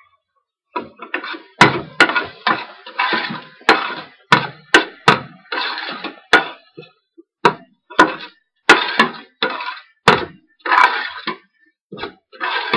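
Metal ladle scraping and clanking against the sides and bottom of a stainless steel stockpot, two or three sharp strokes a second, as a thick spice paste is stirred so it doesn't stick.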